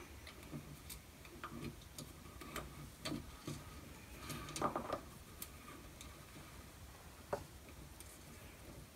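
Faint, irregular clicks and light rustling of a multi-wire cable with crimped ferrule ends being fed through the panel of a metal enclosure and handled inside it.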